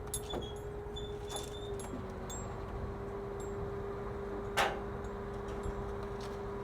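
Construction site ambience: a steady machine hum under scattered light metallic clinks and knocks, with one sharper knock about four and a half seconds in.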